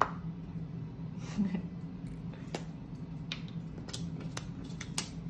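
Light handling sounds of paper craft work on a table: a paper plate and paper cut-outs being moved, with a few short clicks and taps in the second half, over a steady low hum.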